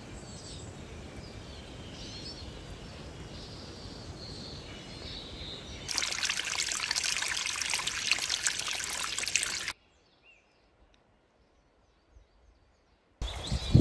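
Running water of a forest stream and waterfalls, with small birds chirping over it. The sound changes abruptly: first a steady low rush with bird song, then about two-thirds of the way in a louder, hissing rush of water for about four seconds, then a few seconds of near silence with a few faint bird calls.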